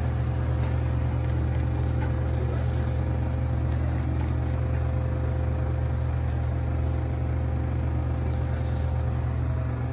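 Steady low mechanical drone, an even hum with no change in pitch or level.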